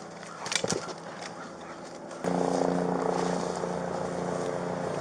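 Helicopter engine and rotor drone, a steady hum of several even tones that starts abruptly about two seconds in, after a few faint clicks.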